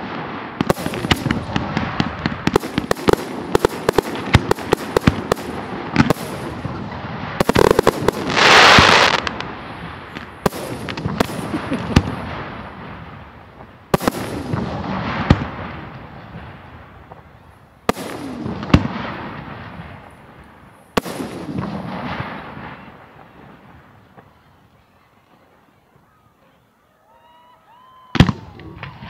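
Fireworks display finale of aerial shells and F3 fireworks. A dense rapid volley of bangs is followed by a long, loud burst, then single shell bursts with fading crackling tails every second or two. These die away to a lull near the end, and one last sharp bang comes just before the close.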